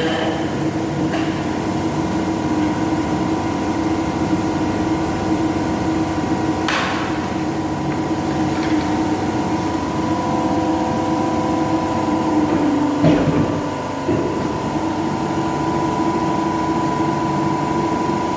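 A machine running steadily with a constant hum, with a brief sharp clack about seven seconds in and a knock about thirteen seconds in.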